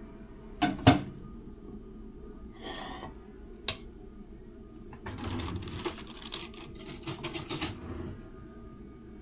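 Kitchen utensils knocking and scraping against bowls as a salad is put together: two sharp knocks about a second in, a short rustle and a single click near four seconds, then a run of clattering and scraping from about five to eight seconds.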